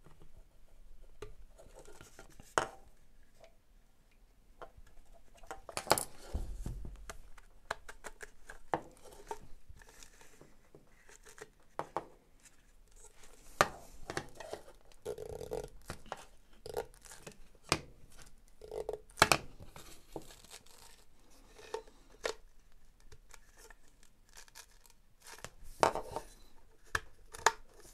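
Plastic and rubber parts of a Makita DX01 dust extraction attachment being handled and fitted together by hand: irregular clicks, knocks and rubbing, with a few sharper snaps.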